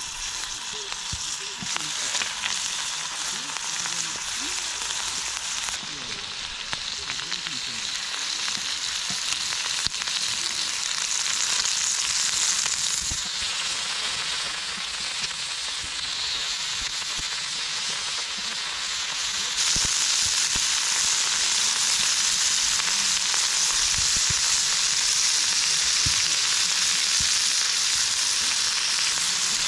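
Food sizzling in fat on a cast-iron Dutch oven lid used as a griddle: a steady frying hiss that gets louder about two-thirds of the way through.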